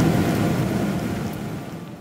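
Cabin noise of a Boeing 777-300ER on its takeoff roll and liftoff: a loud, even rumble of the GE90 engines at takeoff thrust and the wheels on the runway, fading out steadily.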